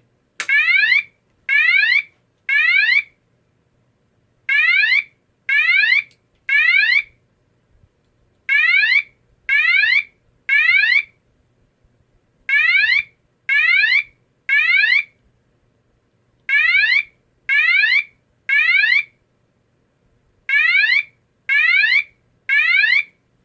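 GE AS363 alarm sounder sounding the Australian evacuation tone, a temporal whoop: three rising sweeps from 500 Hz to 1200 Hz, then a pause, repeated six times.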